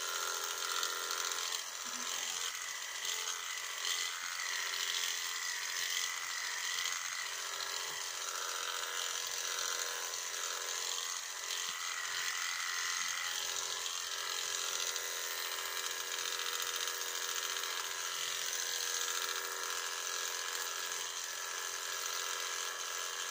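Corded electric sheep-shearing handpiece running steadily as it clips through a sheep's fleece, a continuous motor buzz.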